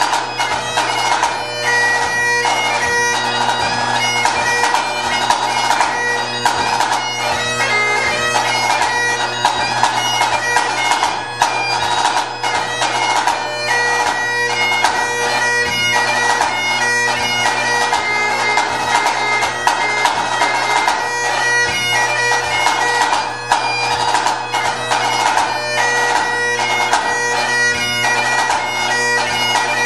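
Highland bagpipe playing a tune over its steady drones, with a pipe band snare drum playing fast strokes and rolls alongside it.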